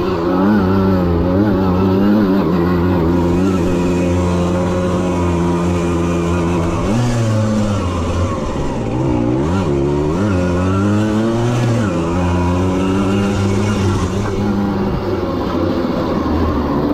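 Old two-stroke moped engine running hard at high revs under the rider. Between about seven and twelve seconds in the revs drop and swing up and down several times, then hold steady again.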